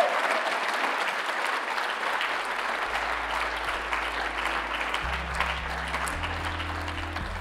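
Applause that slowly dies away, with low bass notes of background music coming in underneath about three seconds in.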